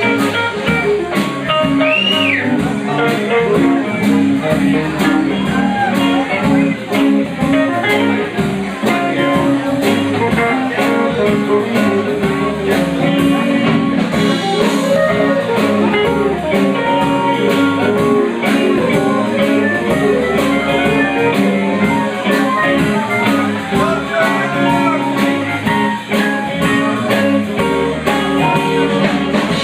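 Live blues-rock band playing an instrumental break, with guitar over a steady drum beat.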